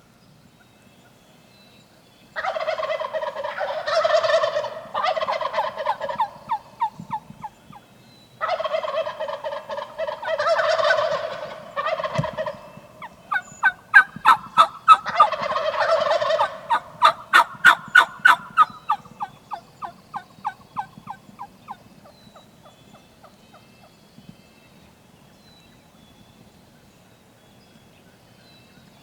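Wild turkey gobbling, several loud rattling gobbles in a row, followed near the middle by a fast run of sharp turkey calls at about three a second that overlaps another gobble and fades out after a few seconds.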